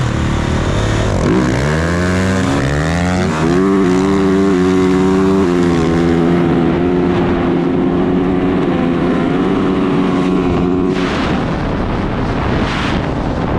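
450cc four-stroke dirt bike engine accelerating, its pitch climbing in steps as it shifts up through the gears, then holding a steady cruise. Near the end the engine note drops away and wind on the microphone takes over.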